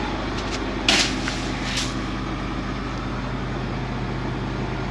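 International Harvester combine's engine running steadily at idle. About a second in there is a short burst of rustling noise, and a weaker one follows about a second later.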